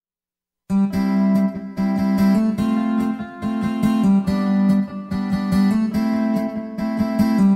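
Music led by plucked acoustic guitar. It starts abruptly under a second in, out of dead silence, and carries on as a run of quick picked notes.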